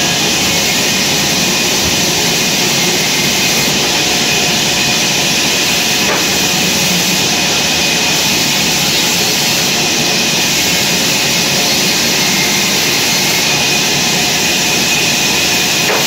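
A large horizontal band sawmill running and sawing lengthwise through a big mango wood log: a loud, steady, unbroken machine noise that stays even throughout.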